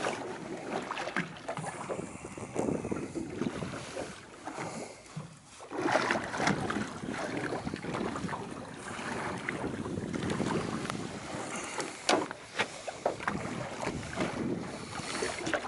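Wind buffeting the microphone and the sea washing around a small fishing boat: a steady rushing noise that swells and eases, with a few small knocks.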